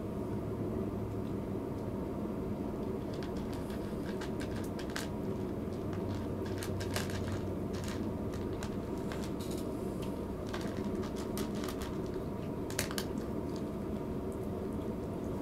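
Cat eating from a plastic food bowl: scattered soft clicks and smacks of chewing and licking through the middle stretch, over a steady low mechanical hum.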